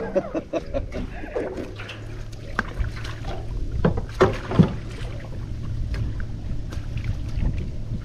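Small fishing boat on the river: a steady low motor hum, with scattered knocks and clicks, a cluster of the sharpest ones about four seconds in.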